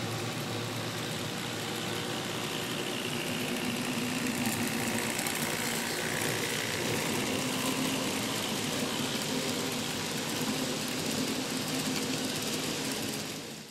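An engine idling steadily, cutting off at the very end.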